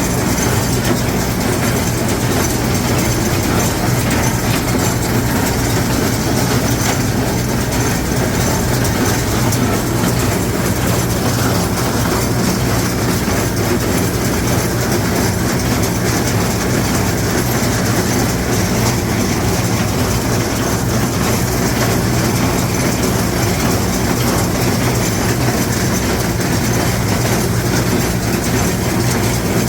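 LS XR4150 tractor's diesel engine running steadily under load while powering and pulling a small square hay baler, the baler's machinery working over the engine.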